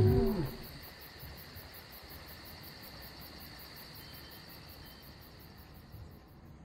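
The tail of a Tyrannosaurus rex roar sound effect dies away in the first half second. It is followed by a steady bed of crickets chirping in an even, rapid pulse.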